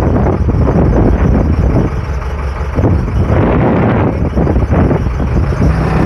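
Case 580 Super L backhoe loader's diesel engine running at a steady idle close by, a continuous low rumble.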